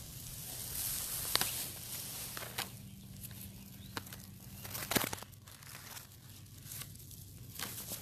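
Kittens scrambling on a laptop keyboard: a soft rustle with scattered light clicks of paws on the keys, over a faint steady low hum.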